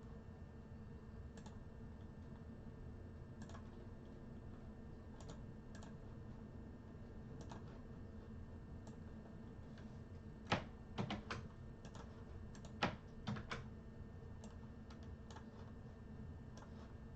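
Computer keyboard typing and clicking: scattered keystrokes, with a quick run of louder clicks about ten seconds in, over a faint steady electrical hum.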